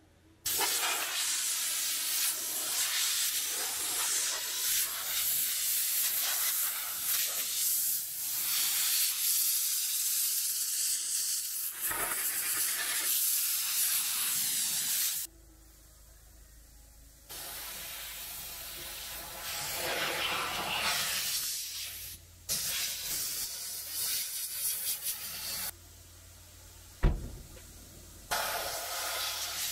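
Hissing spray from car-washing equipment, cut into several short clips with sudden changes in level. A single sharp knock sounds about 27 seconds in.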